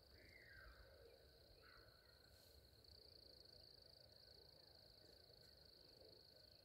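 Near silence: quiet rural ambience with a steady faint high-pitched drone and two faint, falling bird calls in the first two seconds.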